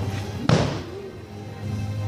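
Background music with a steady beat, and one loud thud about half a second in that rings on briefly.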